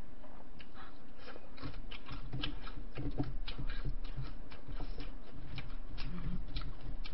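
A person chewing food close to the microphone: a steady run of small wet clicks and smacks, several a second, with a few brief low hums.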